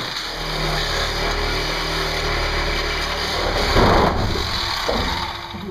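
A power tool running steadily, with a louder surge about four seconds in, winding down near the end.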